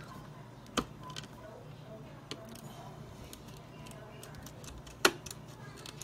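A small screwdriver and fingers working the screws on the back of a graphics card: scattered light ticks and clicks, with a sharp click about five seconds in and a smaller one near the start.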